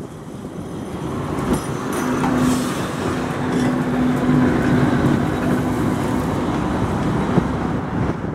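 MTV-82 tram car running close past on the rails, its wheel and running-gear rumble building over the first two seconds and then holding steady, with a steady low hum through the middle of the pass.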